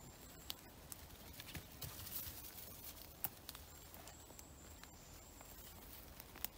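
Faint footsteps and rustling of a walker and a small terrier moving through wet grass and fallen leaves, with scattered light ticks. A thin high whistle sounds twice, briefly near the start and for about a second and a half near the middle.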